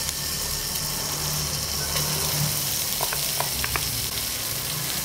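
A frozen lump of Balinese base genep spice paste sizzling steadily in a little hot oil in a pan, with a few small crackles about three seconds in.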